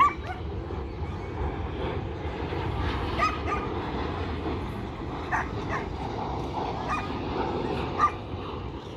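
A dog giving short, sharp, high yips about half a dozen times, spaced irregularly, the loudest near the end, over a steady low rumble.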